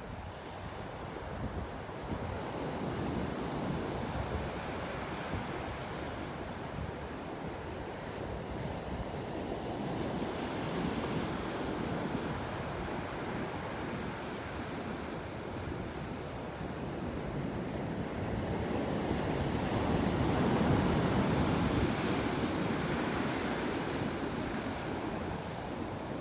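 Ocean surf breaking and washing ashore, rising and falling in slow surges, with the largest surge about three quarters of the way through.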